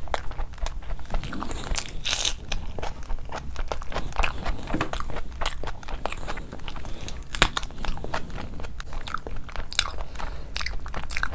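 Close-miked eating: steady chewing with many sharp, irregular crunches and bites, including biting into a raw green chili.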